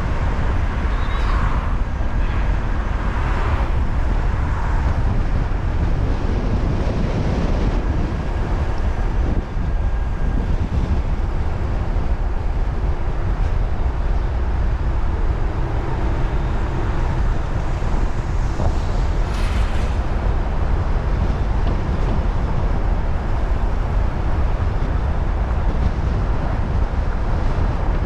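Steady low rumble of a car driving through city traffic, with wind buffeting the microphone; a brief higher-pitched sound stands out about two-thirds of the way in.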